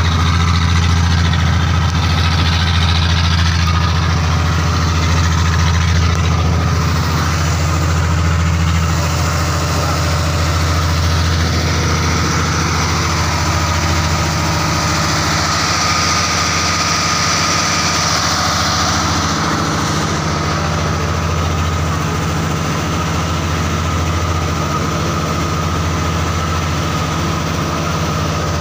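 Inboard engine of a motorized outrigger fishing boat (bangka) running steadily under way, a loud, even low drone.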